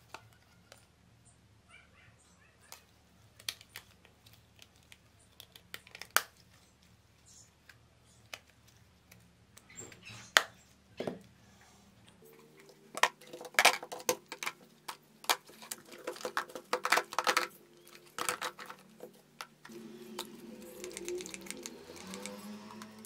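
Plastic mobile-phone parts being handled: clicks and knocks of a phone's snap-on back cover and casing. The taps are scattered at first and come in quick clusters about halfway in.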